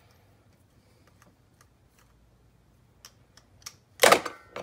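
Faint ticks and clicks of a screwdriver backing screws out of a small plastic motor housing. About four seconds in, a sudden loud clatter as parts on the workbench are knocked over.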